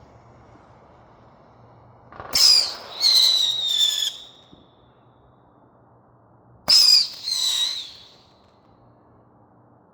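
Roman candle firing whistling shots, two of them about four and a half seconds apart. Each shot starts with a sharp pop and is followed by a shrill whistle that falls slightly in pitch and lasts about a second and a half.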